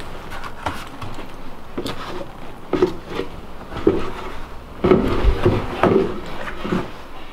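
Footsteps and irregular knocks and rubbing as a person climbs down a companionway ladder into the empty cabin of a fibreglass sailing yacht. The heaviest thuds come about five seconds in, as he reaches the cabin sole.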